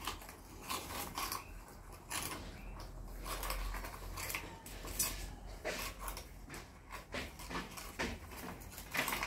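Several rabbits crunching and nibbling crisp round biscuits from a steel plate: an irregular run of short, dry crunches.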